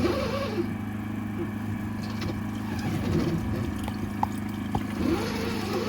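Engine of a high-pressure drain-cleaning jetter running steadily with an even hum, and a few faint clicks.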